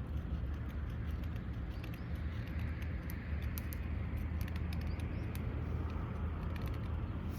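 Wood campfire crackling, with many small sharp pops at irregular moments over a steady low rumble.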